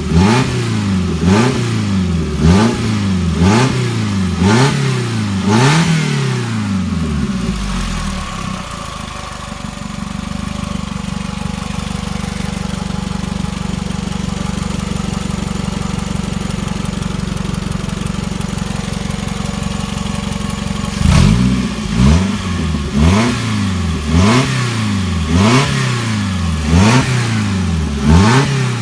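Toyota 2AZ-FE 2.4-litre inline-four engine being blipped on the throttle over and over, about one and a half revs a second, each one rising and falling quickly. About eight seconds in it settles to a steady idle, and past two-thirds of the way the quick revving starts again.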